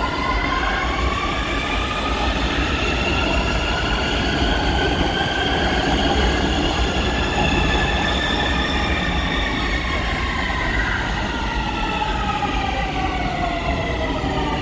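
Siemens Inspiro metro train's electric traction drive whining over the rumble of the train on the track, several tones rising in pitch and then falling again.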